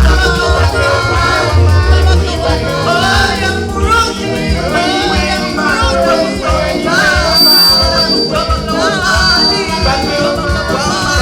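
Praise-and-worship music: singing over a band with a steady bass line.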